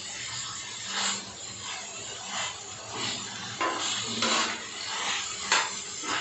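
A metal spatula scraping and stirring pieces of liver on a hot iron tawa, over a low frying sizzle. The strokes repeat roughly every half-second to second, with a few sharper clinks against the griddle in the second half.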